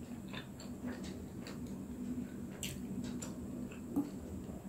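Close-up chewing of a steamed momo dumpling: soft, wet mouth clicks and squishes scattered irregularly over a steady low hum, with one sharper tap about four seconds in as fingers touch the plate of dumplings.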